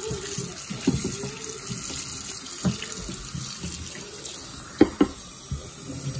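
Kitchen tap running into a sink as things are washed, with a few sharp knocks against the sink, two of them close together about five seconds in.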